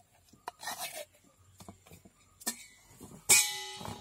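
Metal spoon scraping soft flesh out of a tender coconut in a few short scrapes. About three seconds in, a sharp clank on a stainless steel bowl, which rings briefly as it fades.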